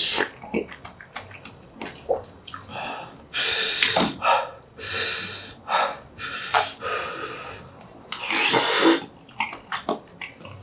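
Close-miked eating sounds: wet chewing with lip smacks and mouth clicks while eating fiery braised pig's trotters and spoonfuls of steamed egg. Twice, about a third of the way in and again near the end, comes a loud hissing breath about a second long, drawn through the mouth against the chilli heat.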